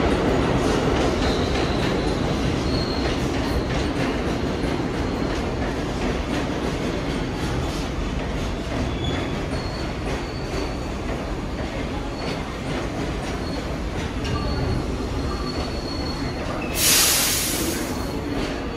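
New York City Subway train running on the track with a steady rumble that slowly fades, short high-pitched wheel squeals now and then, and a sharp hiss of air lasting about a second near the end.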